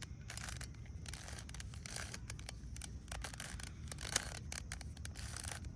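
Plastic Rubik's Cube being turned by hand: an irregular run of dry clicks and scrapes as the layers rotate, with one sharper click about four seconds in.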